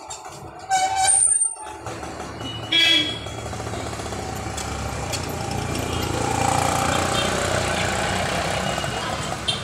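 Street traffic: a vehicle horn honks about a second in and again, shorter and higher, near three seconds. Then engine and road noise builds as a vehicle drives close past.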